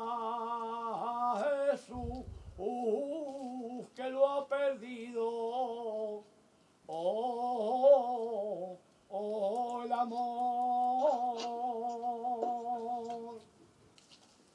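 A man singing a saeta, the unaccompanied Spanish Holy Week lament, to the Virgin's float. He sings long ornamented phrases of wavering held notes, separated by short breaths. The final note is held steady for about four seconds before it stops near the end.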